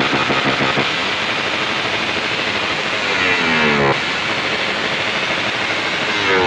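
Vehicle engine through its exhaust: steady idle at first, then blipped with the pitch sliding down as the revs fall back, about three seconds in, and another rev drop starting at the very end.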